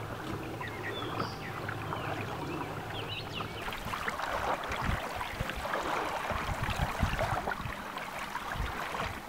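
Water splashing and gurgling along the hull of a sail-driven kayak under way. From about four seconds in, gusts of wind buffet the microphone.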